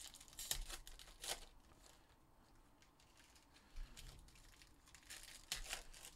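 Faint crinkling and tearing of Panini Prizm card pack wrappers as packs are opened by hand, in a few short bursts: about half a second in, just over a second in, and again around five to six seconds in.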